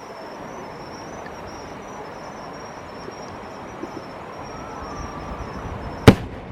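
A lull of steady background noise during a fireworks display, broken about six seconds in by a single sharp firework bang.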